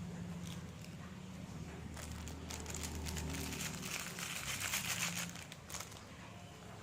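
Plastic wrapping crinkling and crackling as it is handled, in a dense run of crackles through the middle that thin out near the end.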